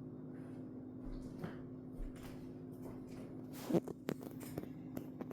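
Scattered light knocks and clicks of household handling, with one sharper knock almost four seconds in, over a steady low hum.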